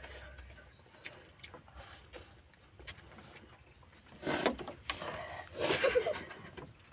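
Close-up eating noises: soft chewing clicks and lip smacks, then two louder wet mouth sounds about four and five and a half seconds in as noodles and fruit are slurped and bitten.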